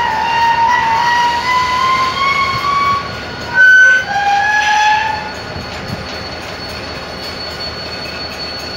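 Freight train's steel wheels squealing on the rails: high shrill tones that slide slowly in pitch, with one loud short shriek about three and a half seconds in. After about five seconds the squeal dies down to a steady rolling rumble under a thin high whine.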